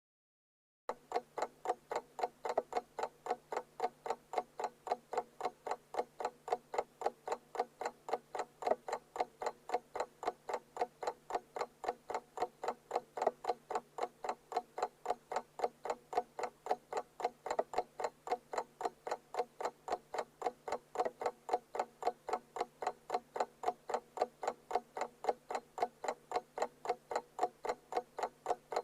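Alarm clock ticking in a fast, even rhythm that starts about a second in and keeps going without a break.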